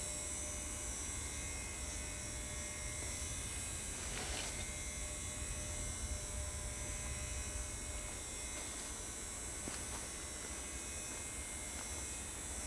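Steady electrical hum under even hiss, with a faint brief rustle about four seconds in.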